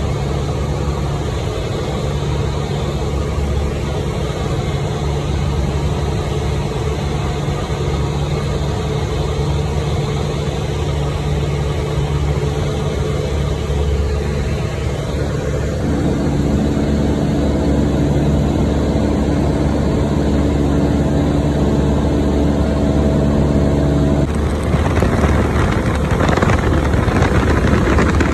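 Cessna 152's four-cylinder piston engine and propeller droning steadily, heard from inside the small cabin. A little past halfway the pitch of the drone shifts. Near the end it gives way to a louder rushing wind noise.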